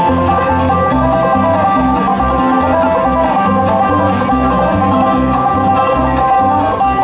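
Live bluegrass band playing an instrumental passage: quick banjo picking over guitar, with a steady bass note on each beat.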